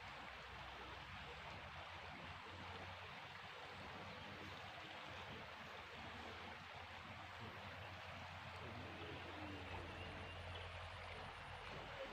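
Faint, steady rush of flowing water, with a low steady hum underneath.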